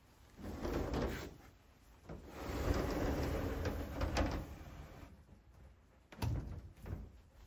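A wooden sliding door rumbling along its wooden track in a couple of pushes, with light knocks of wood on wood, the longest slide lasting about two seconds in the middle.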